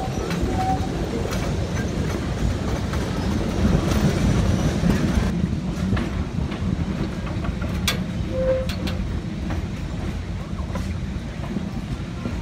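Steady rumble and clatter of a narrow-gauge train's open passenger cars rolling along the track, with scattered clicks from the wheels and rail joints.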